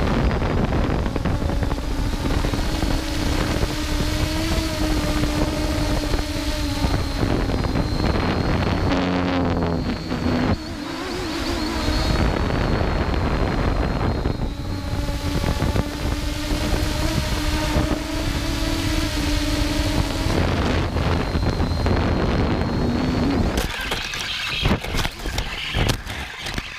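EHang Ghost quadcopter's electric motors and propellers whining steadily in flight, heard close up from the drone's own camera, the pitch shifting as the throttle changes. Near the end a clatter of knocks as the drone crashes and tumbles into the grass.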